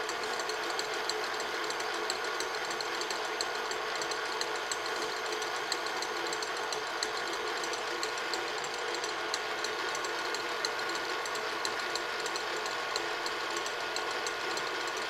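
Tilt-head stand mixer running steadily at medium-high speed, its wire whisk beating egg whites in a stainless steel bowl into meringue: an even, unbroken motor whir.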